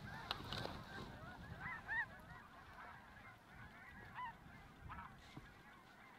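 Faint chorus of many geese honking, their calls overlapping without a break.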